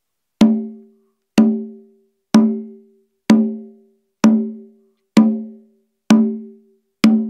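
Conga drum struck eight times with an open hand, about once a second, each stroke ringing with a clear pitch that fades over about half a second. The drum stands flat on a laminate hardwood floor.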